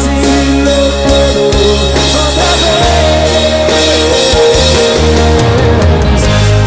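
Live rock band playing, with a man singing over acoustic guitar, bass and drums.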